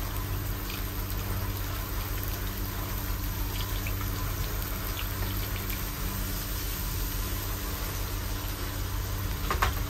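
Chunks of kingfish frying gently in oil in a non-stick pan, a steady soft sizzle with a few small pops. A steady low hum runs underneath.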